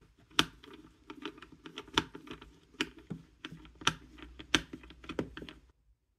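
Small metal box latch and wooden box being handled: a run of irregular light clicks and knocks, with about six sharper clacks among them. They stop abruptly shortly before the end.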